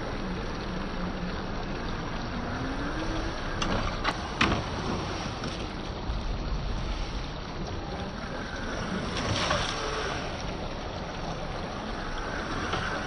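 Traxxas TRX-4 RC crawler's electric motor and drivetrain running off-road, a steady noisy drone whose pitch wavers and rises a little, mixed with wind noise on the microphone. A few sharp knocks come about four seconds in.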